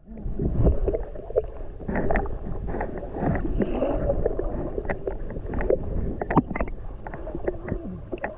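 Muffled underwater sound from a submerged action camera: water moving and bubbling around it, with many small clicks and pops all through.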